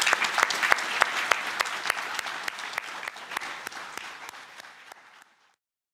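Audience applauding, the clapping dying away and then cutting off shortly before the end.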